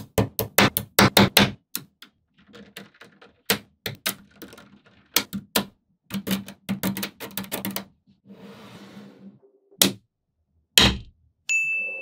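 Small neodymium magnetic balls clicking and snapping together in quick clusters of sharp clicks, with a softer rustle around eight to nine and a half seconds in.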